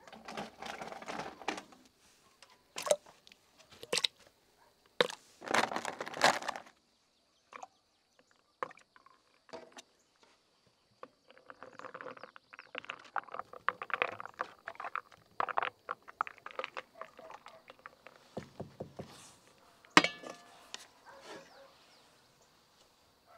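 Moulded blocks of ice clinking and rattling against each other in a plastic container. Then a knife crunches and scrapes into a watermelon rind, and near the end comes a single sharp knock, the loudest sound.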